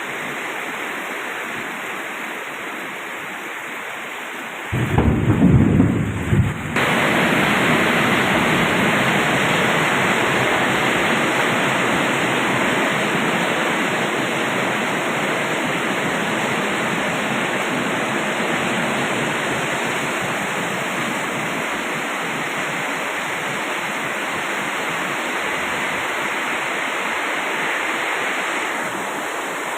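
Heavy rain pouring steadily, with a short low rumble of thunder about five seconds in; after it the rain is louder.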